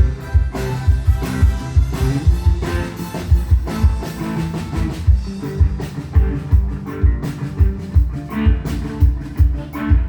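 Band playing an instrumental passage of the song, with guitar over a steady low drum beat and no singing.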